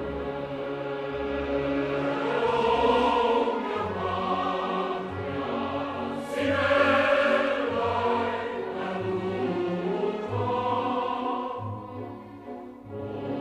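A choir singing chords in several parts over a low bass line, swelling louder about halfway through and dropping away briefly near the end before going on.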